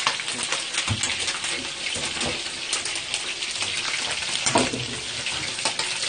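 Meat sizzling as it cooks, a steady frying hiss with irregular crackles and pops of fat.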